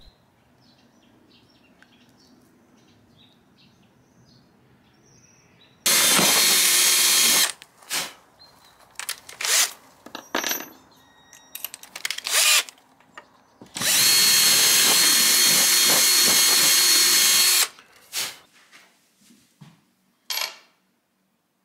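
Power drill boring holes through a wooden drawer front. It starts about six seconds in and runs in two long steady bursts, the second nearly four seconds long, with short trigger blips between them and near the end.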